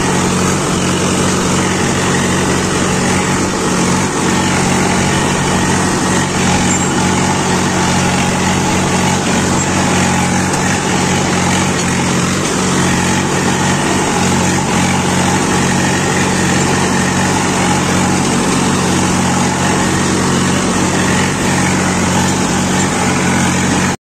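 Tractor diesel engine running steadily under load while plowing dry, hard ground, an even, unbroken engine note.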